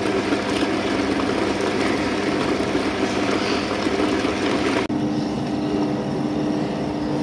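Tabletop wet grinder running, its stone rollers churning soaked wheat into idli batter: a steady motor hum with grinding and sloshing. About five seconds in, the sound changes abruptly and the hum sits higher.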